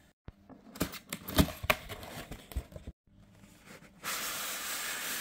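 Cardboard packaging being handled and opened: a string of short knocks, taps and rubs. About four seconds in, a steady hiss starts.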